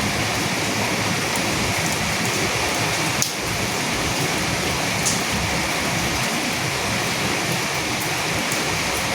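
Steady rain falling on dead leaves, an even hiss with occasional distinct drop ticks.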